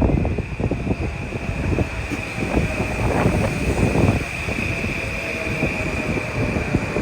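Passenger train passing at speed on the track, its wheels clattering and rattling over the rails, with a steady high-pitched whine underneath.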